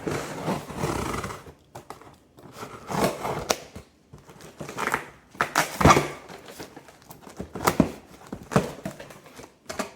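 Packing tape being pulled and torn off a taped cardboard box, in about five separate ripping bursts with cardboard rustling and sharp clicks between them.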